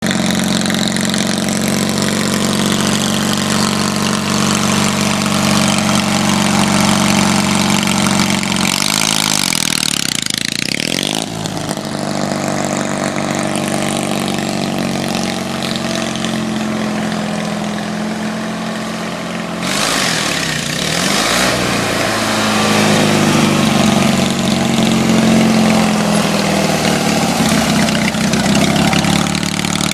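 Lawn mower engine running hard through a burnout, wheels spinning in mud. The engine note shifts and glides about nine seconds in and again about twenty seconds in, and is loudest in the last few seconds.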